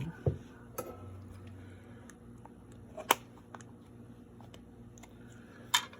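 A few light clicks and taps as the pistol and its removed grips are handled, the loudest about three seconds in, over a faint steady low hum.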